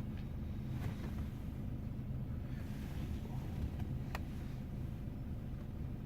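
BMW 328xi's engine idling, a steady low hum heard inside the cabin, with two faint clicks about a second in and about four seconds in.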